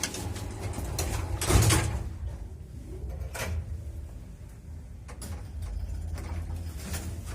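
1983 MLZ passenger lift in operation: a steady low hum from the lift, with a loud burst of noise about a second and a half in and a few sharp clicks after it.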